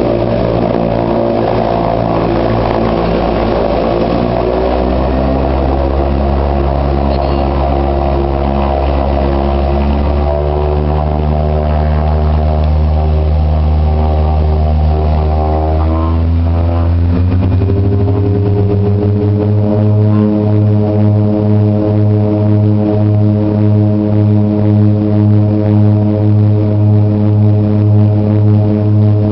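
Twin Otter seaplane's Pratt & Whitney PT6A turboprop engines and propellers at takeoff power during the takeoff run across the water, heard from inside the cabin. A loud, deep propeller drone shifts in pitch about halfway through, then settles into a steady drone with a slow throb.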